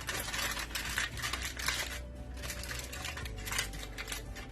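Aluminium foil crinkling and rustling in quick, irregular crackles as it is folded and pressed shut around a whole fish.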